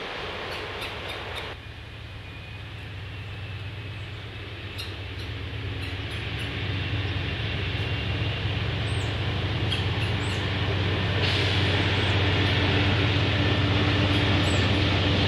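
Diesel locomotive of a passenger train: after a brief stretch of the train running past, its engine drone is heard approaching, growing steadily louder, with a further jump in level about eleven seconds in.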